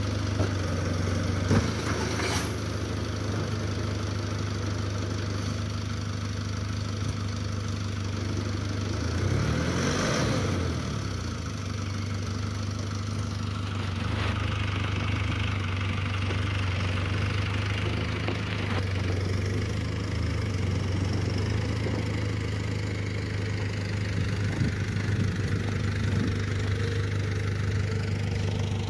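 Diesel engine of a BAW Fenix dump truck idling steadily with its tipper body raised. About ten seconds in there is a louder rush with a brief rise and fall in pitch as the load of snow slides out of the tipped body.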